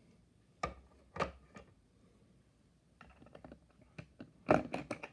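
Small clicks and taps of a diecast toy car being handled. There are three sharp clicks in the first second and a half and light ticking about three seconds in. A quick cluster of louder clicks comes near the end.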